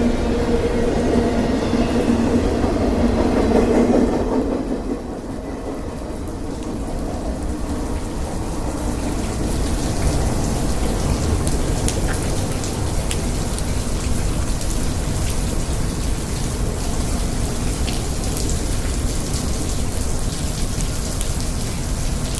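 A CSX intermodal container freight train rolling past with a steady hum, dropping away about four seconds in and leaving steady rain falling.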